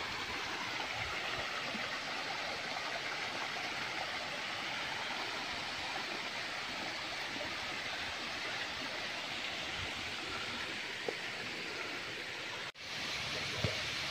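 Hill stream running over rocks, a steady rushing of water that drops out for an instant near the end.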